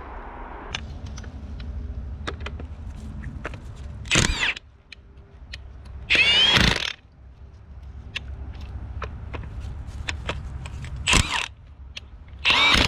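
Milwaukee M18 FUEL half-inch high-torque impact wrench hammering on the rusted pulley bolts of a scrap engine in four short bursts, its motor whine rising and falling with each pull of the trigger. The longest burst, nearly a second, comes about six seconds in, with light clicks of handling between the bursts.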